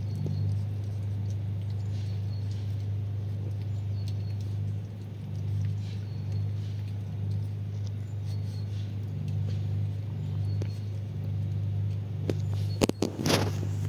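Shiba Inu puppies' claws ticking lightly on wooden deck tiles and concrete over a steady low hum. Near the end comes a short loud burst of scraping and knocking as a puppy scrambles up onto a concrete parasol base.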